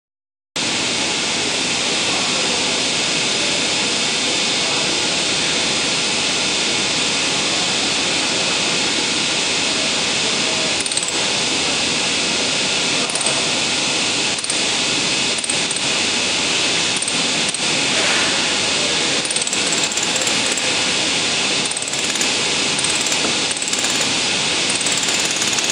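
Steady loud whir of workshop machinery at a laser-welding bench, with scattered sharp clicks and ticks from about eleven seconds on as thin galvanized sheet-metal parts are pressed and handled on the metal bench.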